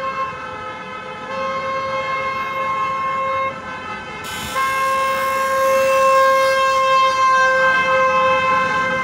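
Car horns of a passing convoy held in long, steady blasts, with short breaks about a second in and around three and a half seconds in, getting louder in the second half as the cars draw near.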